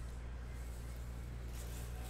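Cellophane wrapping on trading-card boxes rustling faintly as it is pulled off, more noticeable near the end, over a steady low hum.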